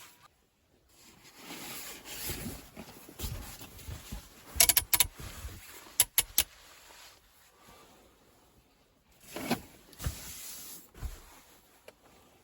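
Handling noises: rustling, with a quick run of sharp clicks near the middle.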